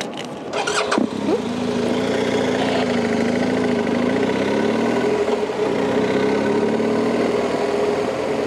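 Motorcycle engine running as the bike pulls away and rides along the highway. Its pitch wavers a little up and down. A few short clicks or knocks come just before it sets off.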